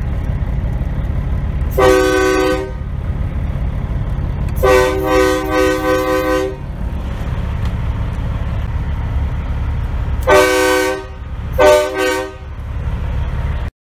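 Semi truck's air horn blown four times: a short blast, a longer blast of about two seconds, then two short blasts close together near the end. A steady low rumble from the idling diesel engine runs underneath, heard from inside the cab.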